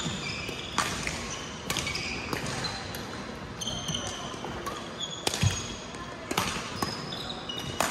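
Badminton rally: rackets striking the shuttlecock with sharp hits every second or so, and sneakers squeaking briefly on the court floor between shots.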